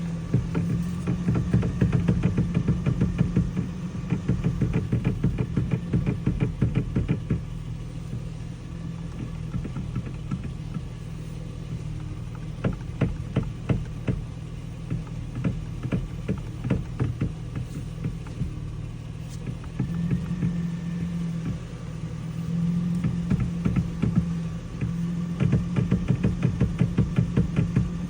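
Steering wheel of a 2007 Toyota Tacoma V6 clicking rapidly, in three runs of quick, even clicks, over the steady hum of the idling engine.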